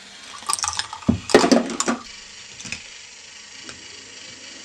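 Plastic K'nex balls clattering and rattling through a K'nex ball-machine lift and its plastic track for about a second and a half, then a few single clicks, over the steady whir of the machine running.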